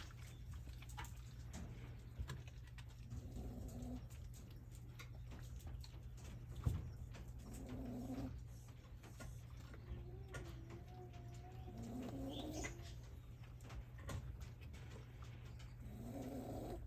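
Shiba Inu puppy snoring in its sleep: four low snores about four seconds apart, one longer with a wavering whistle. A single sharp knock about seven seconds in.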